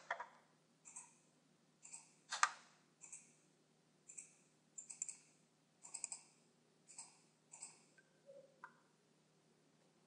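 Computer mouse buttons clicking while objects are selected and moved in a CAD drawing program: faint, sharp single and double clicks at an irregular pace, about one to three a second. A few faint short tones come near the end.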